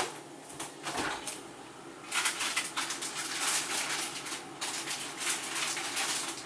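Plastic bag of shredded cheese crinkling and rustling as it is handled, after two light knocks in the first second.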